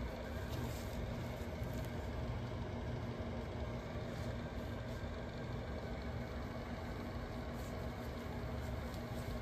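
Steady low mechanical hum with a faint constant tone in it, unchanging throughout.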